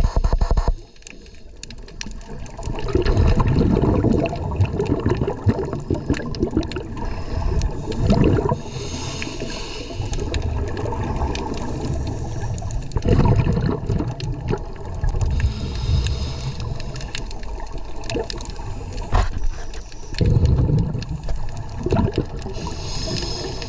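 Scuba diver breathing through a regulator underwater: a gurgling rush of exhaled bubbles about every five seconds, with a hiss from the regulator on each breath in between. A loud rush of water cuts off suddenly under a second in.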